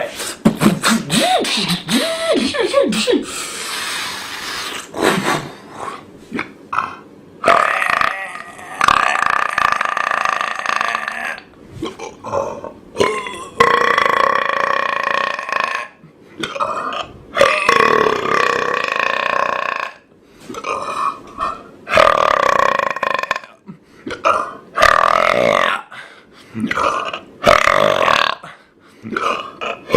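A person belching over and over: a string of long, drawn-out burps, several lasting two to four seconds, with short breaks between them.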